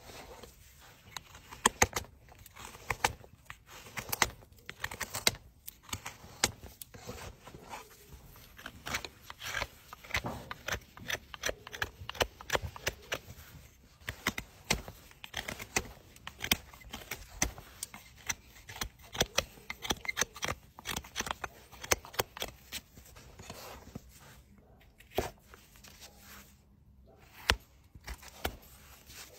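Hoof knife paring the sole and frog of a horse's hoof: a quick, irregular run of short scraping, crackling cuts through the horn.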